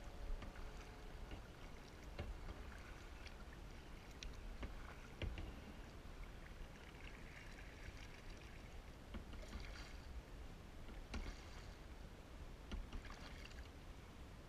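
Kayak paddle strokes in calm lake water: quiet dipping and swishing, with scattered small drips and clicks.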